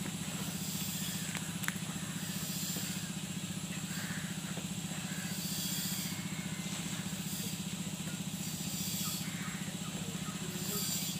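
A steady low mechanical hum, like a motor running, with a faint high hiss over it and a single light click a couple of seconds in.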